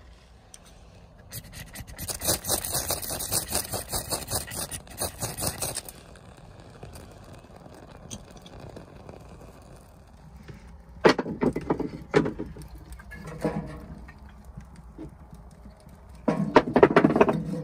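A burst of dense crackling lasting about four seconds, then split firewood logs knocking and clunking as they are loaded into a wood-burning stove. The loudest clatter comes near the end.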